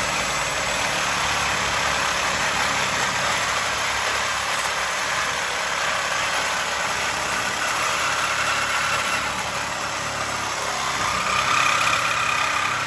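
Angle grinder with a cutoff wheel cutting through a steel motor mount on a car frame: a steady, continuous grinding hiss whose pitch shifts slightly a few times under load, stopping at the end.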